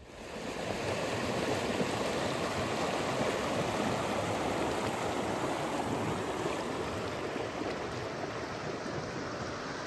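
Shallow river running over stones: a steady rush of flowing water that rises in the first second.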